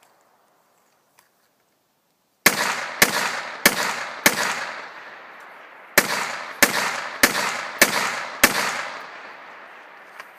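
Rifle shots on an IPSC range: four shots about 0.6 s apart, a short pause, then five more at the same pace, each with an echoing tail.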